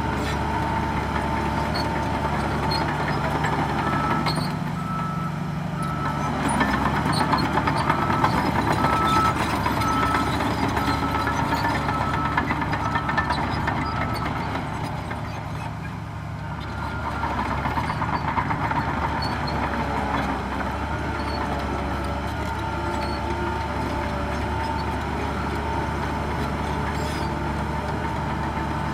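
Heavy diesel engines of a bulldozer and dump trucks working steadily, swelling for a few seconds and easing off again. A reversing alarm beeps about once a second for roughly ten seconds, starting about four seconds in.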